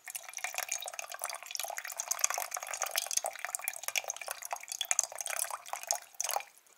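A thin stream of water pouring from a Coleman Packaway kettle's spout, trickling and splashing into a metal Snow Peak mug while the pour is moved in a circle. The stream stops near the end.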